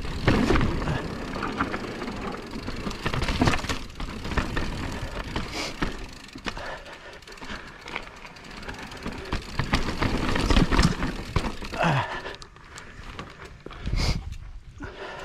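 Mountain bike ridden over a rough trail: tyre noise on the ground with many knocks and rattles as the bike hits bumps, rising and falling in uneven surges.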